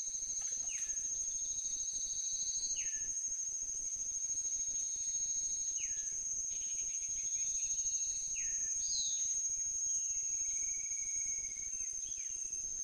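A steady high-pitched insect drone, as from cicadas or crickets, with a bird repeating a short falling whistle every couple of seconds.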